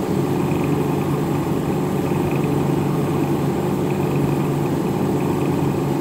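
1973 Carrier window air conditioner running on cool: a steady compressor hum under the even rush of its squirrel-cage blower. The unit is cooling well, its coil running cold.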